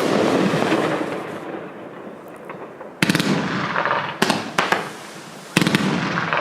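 A 500-gram, 20-shot consumer fireworks cake firing shells. Sharp bursts come at the start and about three, four and five and a half seconds in, each followed by a rolling echo and a few smaller pops.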